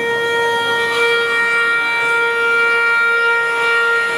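One long, steady, mid-pitched note held without a change in pitch: a sustained tone in the stage performance's music.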